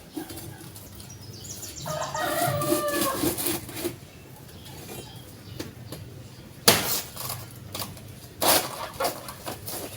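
A chicken calls about two seconds in, a short run of clucking notes. Later come two sharp knocks, a couple of seconds apart.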